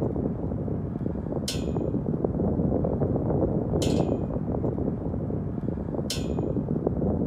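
A steady low, crackly rumble with a short, bright metallic clink repeating about every two and a quarter seconds, three times: an edited soundtrack bed under opening title cards.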